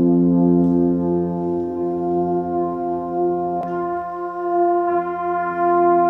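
Brass quintet of French horn, trombone, tuba and two trumpets playing slow, sustained chords. The bass line drops out briefly about four seconds in, and brighter high parts come in soon after.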